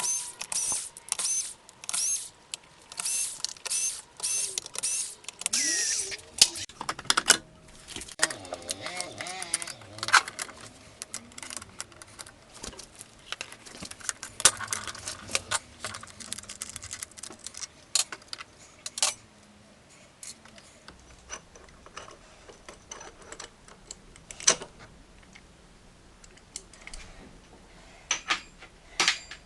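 Clicks, knocks and light metallic rattles of hand tools and metal parts being handled, with a run of rhythmic rasping strokes, about two a second, over the first few seconds.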